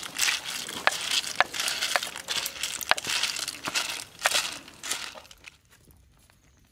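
Clam shells clattering and scraping against each other and the metal wok as they are stirred, with sharp clicks every half second or so, likely cleaver strikes on a wooden chopping board. The clatter stops about five and a half seconds in, leaving a faint crackle.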